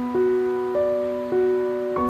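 Slow, gentle piano background music: a new note sounds about every 0.6 seconds over a held low note, each ringing on and fading.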